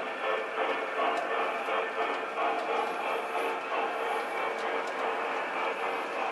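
Large-scale model train freight cars rolling along brass track, a steady rolling rumble of metal wheels on rail with a few faint clicks.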